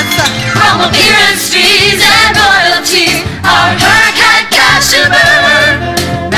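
Female vocal group singing a gospel-style show tune in harmony, with a band and a steady drum beat behind them.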